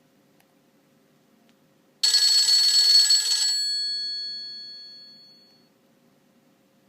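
A Nokia 6500 Slide ringtone playing through the phone's loudspeaker: one sudden ringing burst about two seconds in, lasting about a second and a half, after which its tones fade out over about two seconds.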